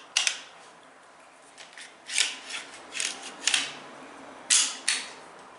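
Glock pistol being reassembled by hand: the steel slide scraping and clicking as it is worked back onto the polymer frame. A sharp click just after the start, a run of brief scrapes, then two louder clacks about half a second apart near the end.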